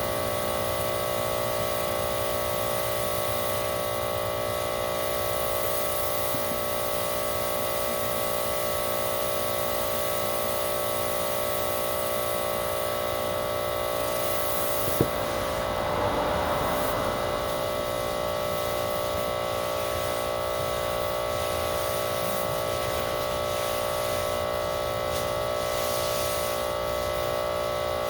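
Electric pressure washer's motor and pump running steadily with a whine, spraying water through a 15-inch rotary surface cleaner over asphalt; one sharp click about halfway through, then a brief louder swell of spray. The washer puts out only about 1900 psi, too little for a cleaner built for up to 4000 psi.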